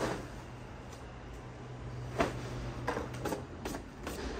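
Heavy lined draperies being lifted and shaken out, with a handful of brief fabric swishes and rustles, the loudest about two seconds in. A low steady hum sits underneath and stops near the end.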